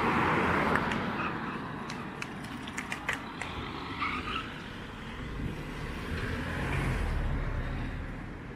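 A car passing close by at the start, its tyre and engine noise fading over the first second or two. A few sharp clicks come in the middle, and a second, lower vehicle sound swells near the end.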